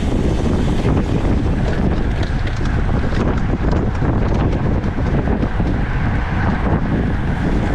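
Wind buffeting a bike-mounted camera's microphone while riding: a loud, steady rush heaviest in the low rumble.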